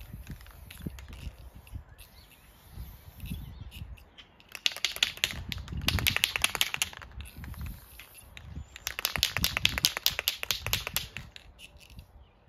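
Aerosol spray paint can being shaken, its mixing ball rattling rapidly inside, in two bouts of about two seconds each, the first about four and a half seconds in and the second about nine seconds in.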